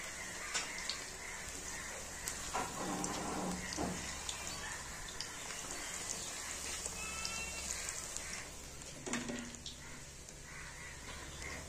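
Moong dal fritters deep-frying in hot oil in a kadai: a steady sizzle with small crackles. A few brief animal calls sound over it.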